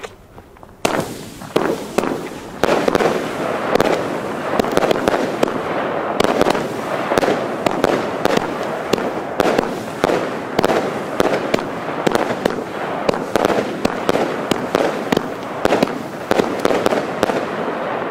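Pyroland 'Night Nurse' firework battery (30 mm calibre, 500 g net explosive) firing. About a second in it starts a fast, continuous run of launch shots and bursts that does not let up.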